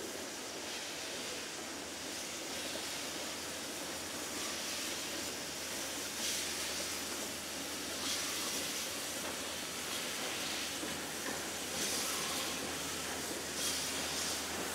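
Victorian Railways J class steam locomotive J549 passing slowly with its train, a steady hiss of steam that swells every couple of seconds.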